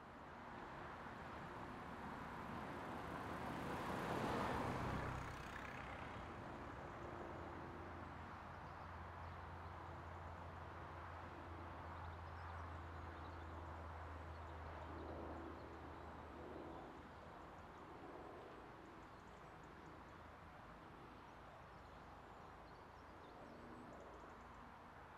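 Class 08 diesel shunter's engine running as it approaches slowly, a faint, steady low drone that eases off about sixteen seconds in. A broad rush of noise swells and peaks about four seconds in.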